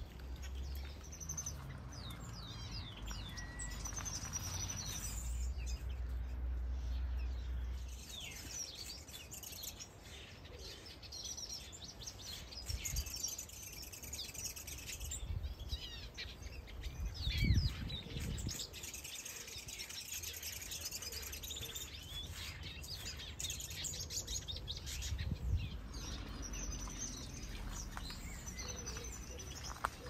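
Many small aviary birds, finches and softbills, chirping and calling over one another in short high notes and trills. A low rumble runs under the first several seconds, and a dull thump comes a little past halfway.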